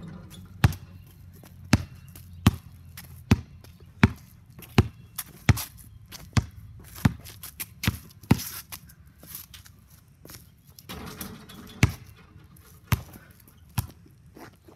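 Basketball bounced on a concrete pad, a sharp smack about every three-quarters of a second. After about eight seconds the bounces grow fainter and sparser, with a few more near the end.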